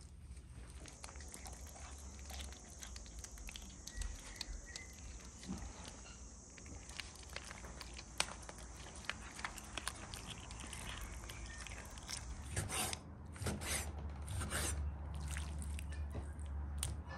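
Kitten chewing and biting raw chicken pieces in a plastic bowl, a run of small wet clicks and crunches. Near the end, a chef's knife slices raw chicken breast on a wooden cutting board, with louder strokes against the board.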